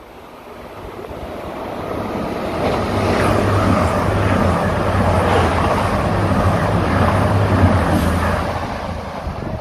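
CrossCountry diesel passenger train passing close alongside a station platform. The rush of the train builds over the first few seconds, holds with a steady low engine hum and rumble, then fades near the end.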